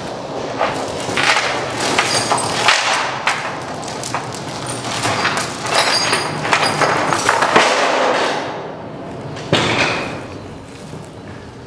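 Heavy steel transport chain rattling and clanking as it is pulled through the coil's eye and hooked at the trailer edge, a rapid run of metal clinks and knocks, then a single sharp knock near the end before it quietens.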